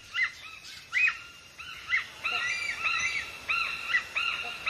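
Several birds calling together: many short, high, arched chirps overlapping in a continuous chatter.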